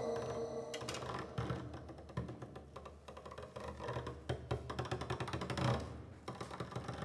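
Drum played with an extended technique, a thin stick or rod worked against the drum head: a held ringing tone dies away in the first second, then fast, irregular clicking and rattling over a low hum.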